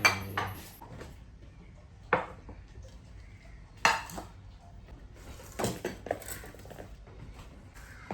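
A handful of separate sharp clinks and knocks of hard objects, about six at irregular gaps of one to two seconds, over a quiet background.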